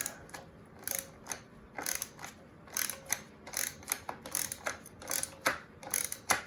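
Ratchet wrench clicking in short, uneven runs while backing out the 8 mm bolts that hold a moped's carburetor on.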